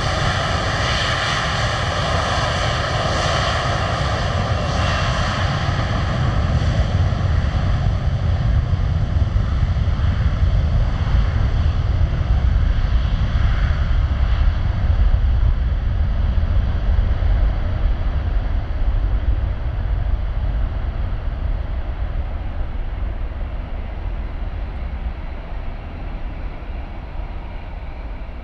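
Airbus A330-200 jet engines, Rolls-Royce Trent 700 turbofans: a high whine as the aircraft rolls past, then a deep rumble that swells around a third of the way in and fades as the jet accelerates away down the runway for takeoff.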